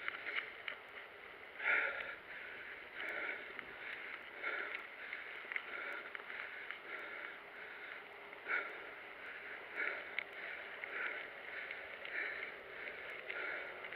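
Mountain bike ridden along a dirt singletrack, with a rhythmic whooshing about every two-thirds of a second over a steady rolling noise.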